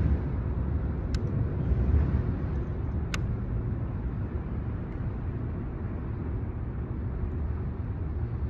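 A steady low rumbling noise, with two short sharp clicks about one and three seconds in.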